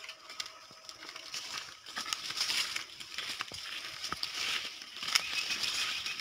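Footsteps crunching on a dry dirt path and bodies brushing through leafy undergrowth as several people walk past close by. The rustling and crunching grow louder from about two seconds in, with a few sharp snaps.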